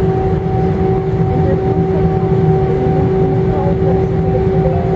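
Cabin sound of an Airbus A318 taxiing: the jet engines idle with a steady whine on two even pitches, over a constant low rumble.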